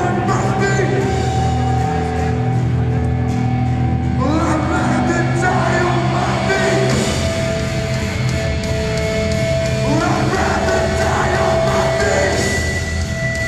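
Hardcore punk band playing live: loud, distorted guitars, bass and drums with held guitar notes, and shouted vocals coming in about four seconds in and again about ten seconds in.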